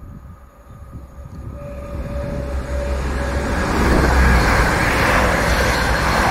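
An East Midlands Railway Class 222 Meridian diesel train approaches and passes the platform at speed. It builds from a low rumble to a loud rush of wheels and air that peaks about four seconds in. A single steady tone sounds for about two seconds as it nears.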